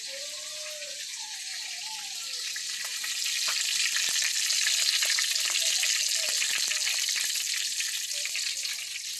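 Hot oil sizzling and crackling in a steel wok over a portable gas burner, growing louder about three seconds in.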